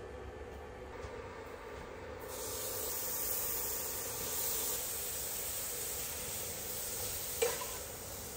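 Ground beef sizzling in a hot frying pan on an induction cooktop: the sizzle starts about two seconds in as the meat meets the pan and holds steady. A single clink of the utensil against the pan comes near the end.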